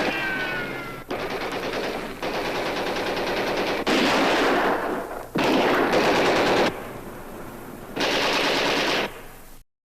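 Machine-gun fire in a string of rapid bursts, the loudest about four and six seconds in, with fainter bursts between them. A falling whine fades out in the first second, and the firing stops abruptly shortly before the end.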